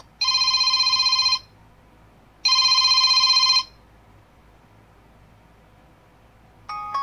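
Smartwatch speaker playing an old-style telephone-bell ringtone: two rapidly pulsing rings about a second long each, a second apart. Near the end a short chime of a few notes starts.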